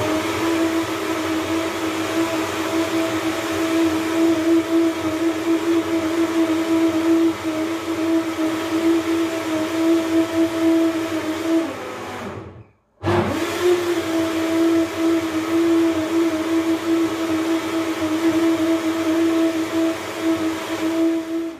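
Countertop electric blender running steadily at one speed. About twelve seconds in the motor winds down and stops briefly, then starts again with a quick rise in pitch and runs until it cuts off at the end.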